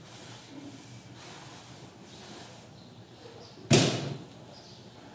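Chalkboard duster wiping faintly across a blackboard, then a single loud thud about three and a half seconds in.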